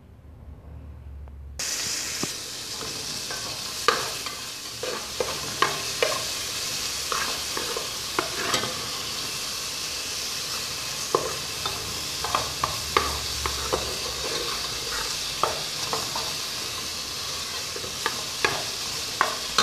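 Chopped garlic, onion and bell pepper sizzling in rendered bacon and calabresa sausage fat in an aluminium pot, with a plastic spoon scraping and tapping the pot as it is stirred. The sizzle starts abruptly about a second and a half in.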